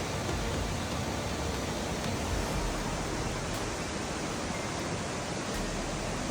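Torrential floodwater rushing: a steady, even wash of noise with no breaks.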